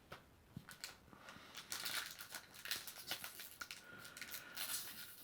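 Foil booster-pack wrapper crinkling and tearing as a trading-card pack is opened, with faint clicks of cards being handled.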